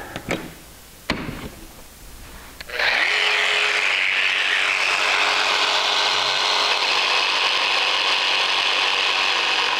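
A couple of short clicks as a bench clamp is set on a baseboard, then about three seconds in a jigsaw with a coping foot starts and runs steadily, its blade sawing into the end of the baseboard to cut a cope.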